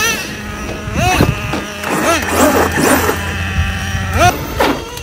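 Brushless electric motor of an RC monster truck whining as it is throttled, rising and falling in pitch in several quick bursts: about a second in and again near the end.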